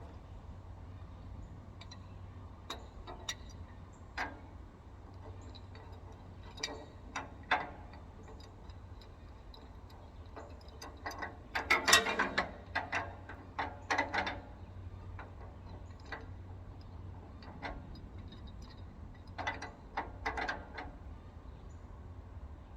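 Metal hand tools clicking and clanking on an excavator's hydraulic hose fitting as he tries to work it loose. Scattered single clicks, with a dense flurry about halfway through and another shorter one near the end.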